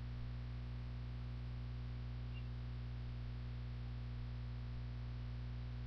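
Steady low electrical hum with a faint hiss, unchanging throughout: mains hum picked up by the recording setup.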